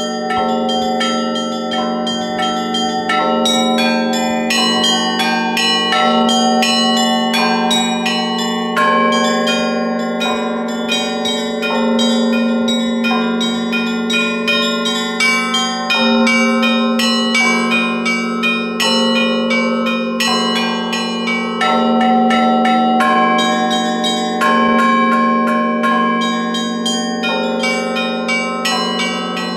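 Russian Orthodox church bells rung together in a full peal. Small bells chime rapidly in a repeating pattern over a deep bell struck about every one and a half seconds, and the tones ring on and overlap.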